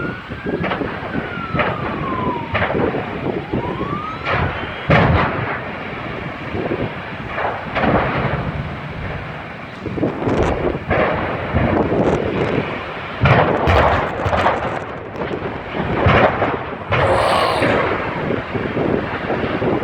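Repeated heavy bangs and booms from a burning welding-supply building, the sound of its stored gas cylinders exploding, over a continuous rumbling din. A siren wails up and down during the first few seconds.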